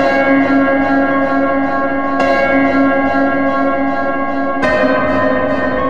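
Slow, sustained bell-like chords, a new chord struck about every two and a half seconds: changes come about two seconds in and again past four seconds.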